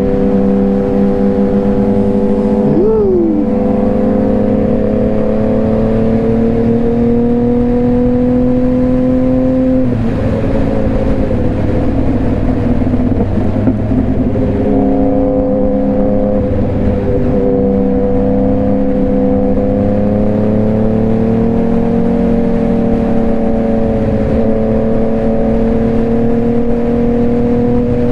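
Motorcycle engine running at a steady cruising speed under wind rush. Its pitch holds and creeps slightly upward, wavers and shifts around ten seconds in, then settles into a steady note again.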